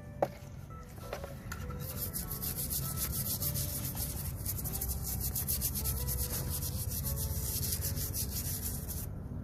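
Rapid, even rubbing strokes, like sandpaper or a brush scouring rust off a corroded refrigerator compressor's metal shell. They start about two seconds in and stop shortly before the end, after a single click at the very start.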